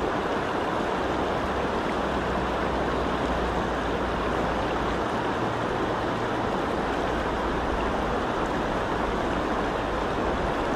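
Fast, shallow river riffle rushing steadily around the camera, a constant even sound of running water with no single splashes standing out.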